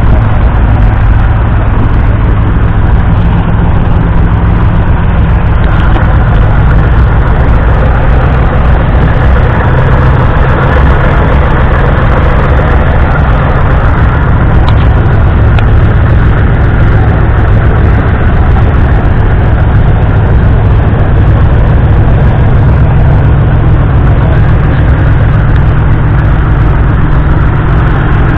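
Massey Ferguson 165's 3.5-litre four-cylinder diesel engine idling steadily, heard up close.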